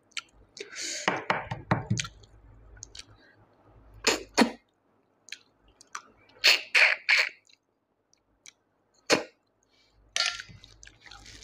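Close-up eating sounds of snail curry eaten by hand: a series of short wet slurps and smacks as snails are sucked from their shells, with chewing in between.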